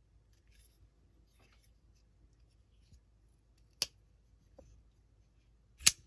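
Biryukov custom folding knife with an S125V blade being worked in the hand: faint handling rustles, then two sharp metallic clicks of the blade and its lock, the second, near the end, the louder.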